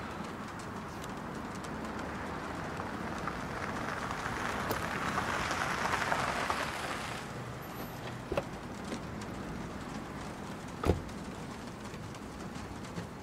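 A car driving up over rough ground, its noise swelling and then cutting off suddenly about seven seconds in, followed by a few sharp knocks, the loudest near the end.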